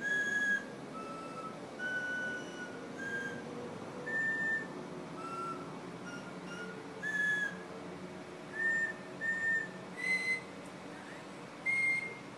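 People whistling a tune: a melody of short, clear held notes that step up and down in pitch, with brief gaps between phrases.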